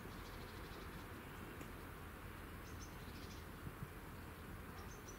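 Quiet outdoor background: a steady low hiss with scattered faint high chirps, with no crossing bell or passing train heard.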